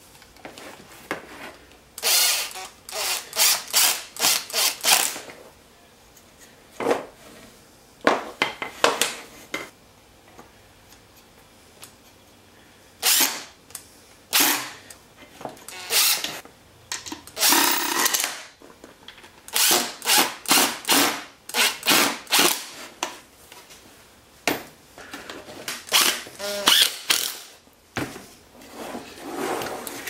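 Cordless impact driver driving screws into plywood in many short bursts of rapid rattling, with brief pauses between bursts.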